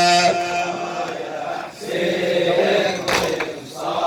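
Men's voices chanting a Shia Muharram lament (latmiya) for Husayn: a held sung note ends shortly after the start, then the men's voices take up the chant together.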